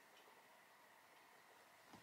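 Near silence: room tone.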